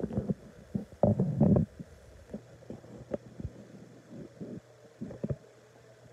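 Handling noise from a phone carried while walking across a hardwood floor: irregular low thumps and rubs, heaviest about a second in, with a faint steady hum coming in about two seconds in.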